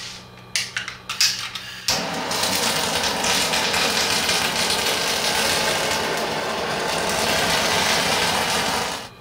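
Handheld gas kitchen torch searing the skin of a hamachi fillet: a few sharp clicks in the first two seconds, then the flame hissing steadily for about seven seconds before cutting off suddenly near the end.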